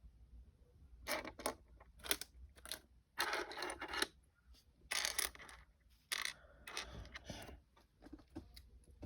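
Loose plastic Lego pieces being handled: short clattering bursts about once a second, with a longer scrape of pieces shifting against each other near the middle.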